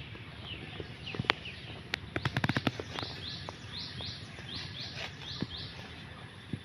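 A bird calls over and over with short falling notes, about three a second, against an outdoor background. Before the calls, a few sharp knocks and a brief rattle of clicks come from fish being cut on a boti blade over a steel plate.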